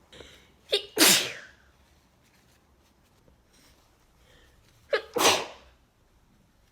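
A person with a head cold sneezing twice, about four seconds apart: each time a short voiced catch of breath, then a loud explosive "achoo".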